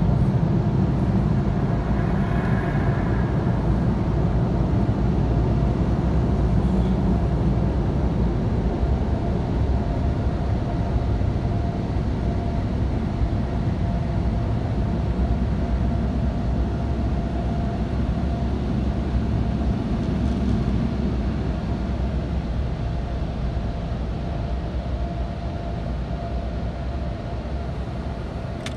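Automatic car-wash machinery running over the car, heard from inside the cabin: a steady low rumble with a faint steady hum, easing off slightly toward the end.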